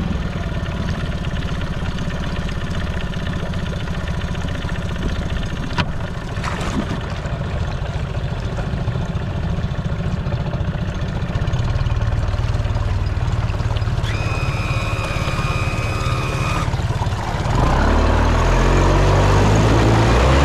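Outboard motor on a flats skiff running steadily at low speed, then throttled up near the end, its pitch rising as it speeds up, with water rushing and spraying at the stern.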